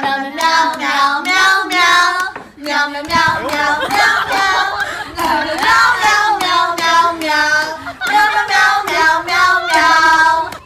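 A high-pitched voice, like a child's, singing a melody, with a brief pause about three seconds in.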